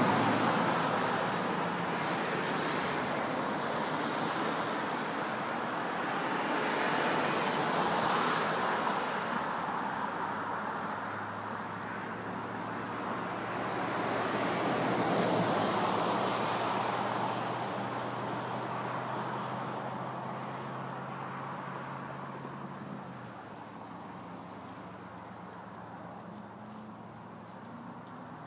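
Traffic on a road: three cars pass one after another, each a swell of tyre and engine noise that fades, and the traffic dies away in the second half. Crickets chirp steadily beneath and are plainer toward the end.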